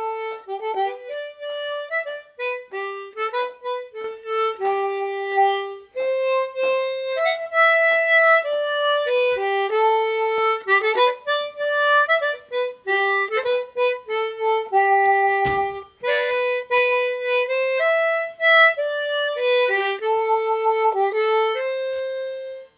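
A harmonica played solo: a tune of quick short notes mixed with a few longer held ones, stopping just before the end.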